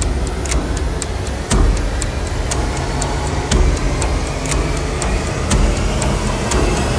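Film soundtrack sound design: a regular ticking, about two ticks a second, over a deep steady rumble.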